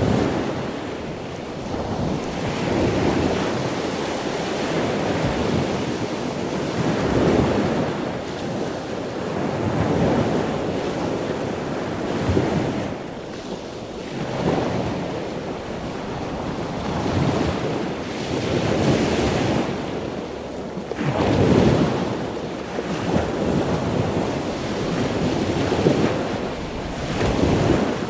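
Ocean waves breaking and washing in, a continuous rush of surf that swells and eases every couple of seconds.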